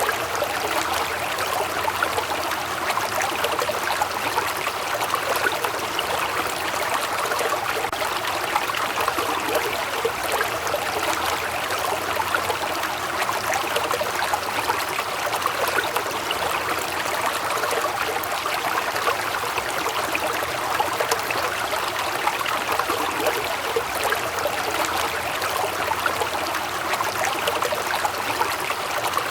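Waterfall: falling water splashing steadily, a dense even rush with fine splashy detail.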